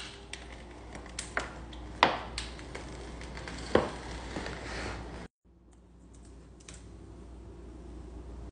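Paper protective wrap being peeled off a new iMac, rustling and crinkling, with several sharp taps and clicks of hands on the machine and its packaging. After a brief break halfway, the rustling carries on more quietly with an occasional click.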